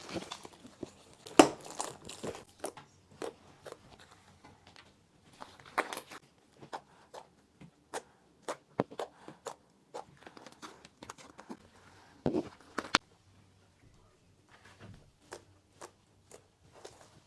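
Butter slime being squished and pressed by hand, giving irregular sticky clicks and crackles, loudest about a second and a half in and thinning out near the end.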